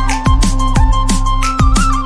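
Background music: a held, sliding melody over a steady beat of deep thumps about twice a second.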